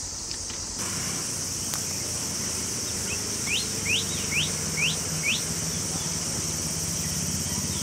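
Steady high-pitched insect drone in forest, with a small bird calling over it: five quick rising chirps, about two a second, starting about three and a half seconds in.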